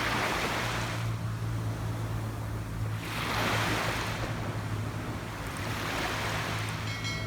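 Ocean waves breaking on a beach: three surges of surf wash in and die away, roughly three seconds apart, over a steady low rumble.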